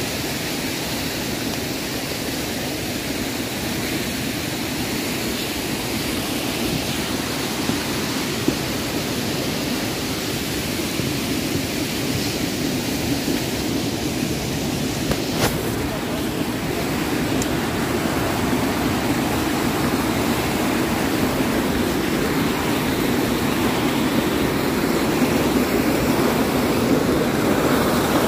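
Steady rushing of flowing stream water that grows gradually louder toward the end, with a single sharp click about halfway through.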